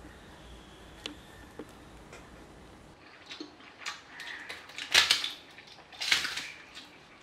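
A fried pappadam being crushed by hand on a banana leaf: a few sharp, crisp crackles, the loudest about five seconds in and another about a second later, after a quiet first few seconds.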